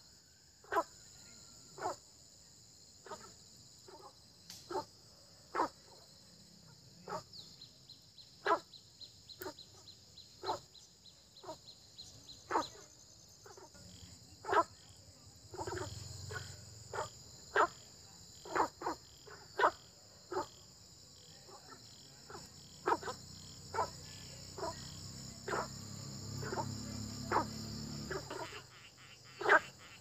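Frogs croaking in a flooded field: short single croaks, one about every second and irregular, from several frogs at different distances. A steady high insect trill runs behind them, and a low hum comes in about halfway through.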